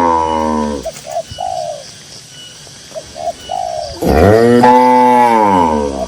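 A cow mooing twice: a long call that tails off in the first second, and another loud moo about four seconds in, lasting some two seconds and falling in pitch at its end. Between the moos a dove coos in short paired phrases.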